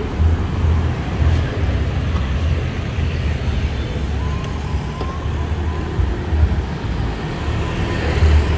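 Road traffic on a busy street: a continuous, uneven low rumble of passing vehicles.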